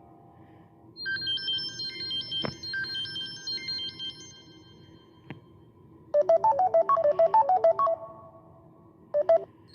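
Samsung Galaxy S3 Mini ringtone and notification tones playing one after another. A high melody of short chiming notes starts about a second in, a fast run of about a dozen lower notes follows around six seconds in, and two short notes come near the end, with a couple of sharp clicks between.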